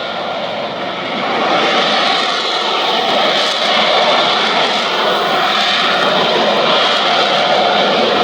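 Loud jet noise from an F-35 Lightning II's single afterburning turbofan engine as the jet flies, swelling about a second in and then holding steady.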